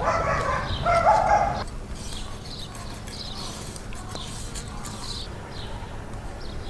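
Dog barking twice in the first second and a half, short, fairly high-pitched barks, followed by faint bird chirps.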